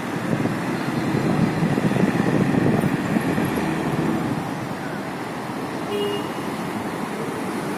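Street traffic at a busy roundabout: a city bus, cars and motor scooters running past in a steady rumble of engines and tyres, swelling about two to three seconds in, with a short horn toot about six seconds in.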